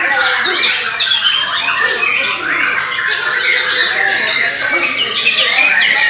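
Bornean murai batu (white-rumped shamas) singing over one another in competition: a continuous, dense chorus of loud whistles and chattering phrases with no pause. Voices murmur underneath.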